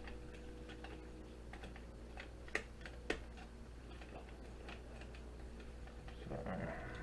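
Faint, light clicks and ticks from handling a laptop motherboard as its metal shields are worked at, with two sharper clicks about two and a half and three seconds in, over a steady low hum.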